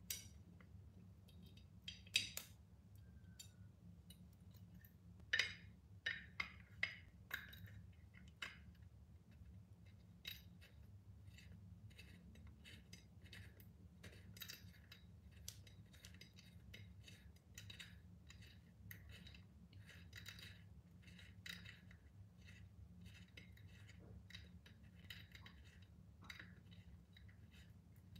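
Faint clicks and light clinks of metal on a tempered glass pot lid as its handle and small screw are fitted by hand: a few sharper clicks in the first several seconds, then soft, irregular ticking. A low, steady room hum runs underneath.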